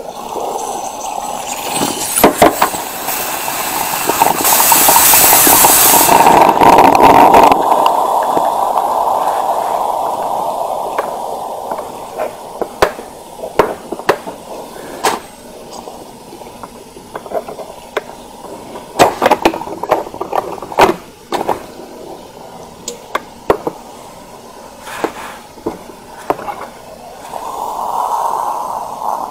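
Krups 985 coffee maker's steam-driven espresso side brewing: a loud hiss of steam for several seconds, then fading into sputtering pops and clicks as steam and coffee spit through.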